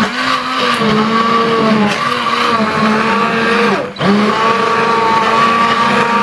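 Hand-held stick blender running in a slow cooker of butternut squash soup, its motor whining with a pitch that wavers as it purées chunks of squash in stock. It cuts out briefly about four seconds in, then starts again.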